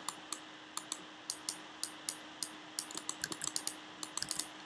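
Computer keyboard keys and mouse buttons clicking irregularly, a few presses a second, with a quicker run near the end.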